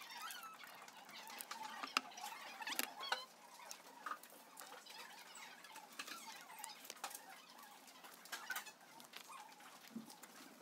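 Faint crinkling of a small plastic snack wrapper being opened, then paper sheets rustling, with scattered light clicks and taps. A sharp click about two seconds in is the loudest.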